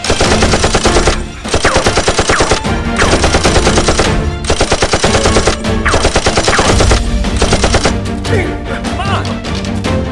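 Automatic-gunfire sound effect dubbed over toy blasters: rapid machine-gun fire in repeated bursts of a second or so, stopping about eight seconds in, over background music.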